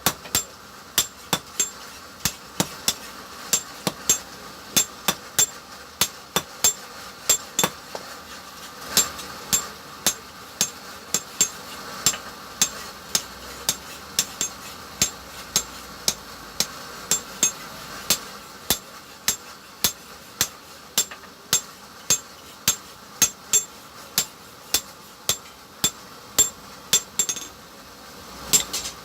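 Hand hammer striking metal on an anvil in a steady, ringing rhythm of about two blows a second, with brief pauses, over a steady hiss.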